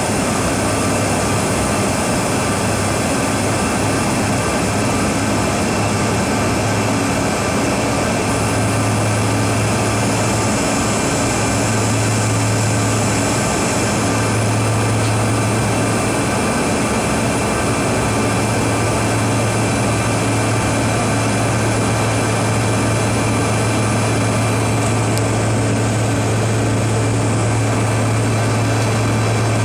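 Steady cabin noise of a Bombardier CRJ regional jet in flight: the drone of its rear-mounted GE CF34 turbofans and rushing airflow, with a strong low hum under it.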